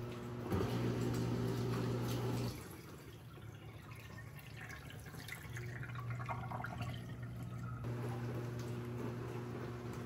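COMFEE portable countertop dishwasher running: a steady motor hum that stops about two and a half seconds in and comes back about halfway through, over dripping, trickling water.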